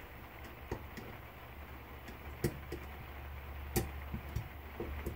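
Scattered light metallic clicks and taps, irregular and a dozen or so, as needle-nose pliers work at a spring and keeper in a Zexel diesel injection pump's plunger bores, over a low steady hum.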